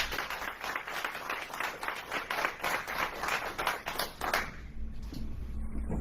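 Audience applauding: many hands clapping, dying away after about four and a half seconds.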